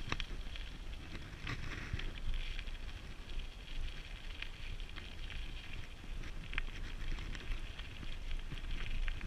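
Dog scooter rolling fast over a rough dirt-and-gravel track: a steady crackling rumble from the tyres, with occasional sharp clicks and wind buffeting the microphone.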